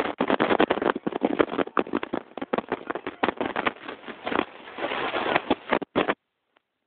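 Loud, irregular crackling and rustling of the camera's microphone being handled and rubbed, which cuts off suddenly about six seconds in.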